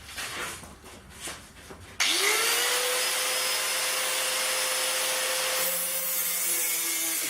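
An angle grinder cutting thin galvanised steel sheet. A few light clicks come first, then about two seconds in the grinder starts suddenly, its whine rising quickly to a steady pitch over a loud harsh hiss that carries on as the disc works through the sheet.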